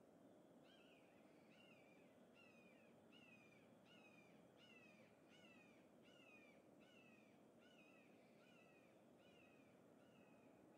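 Faint, repeated calls of a bird, a short falling note about every 0.7 seconds, over a low background hiss.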